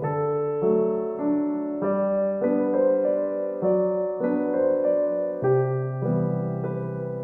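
Background piano music: gentle keyboard chords and melody notes changing about every half second over held bass notes.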